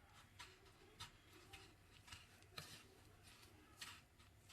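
Faint, scattered crackles and light ticks of a hand pressing a shaped chicken macaroni kebab into dry breadcrumbs, over near-silent room tone.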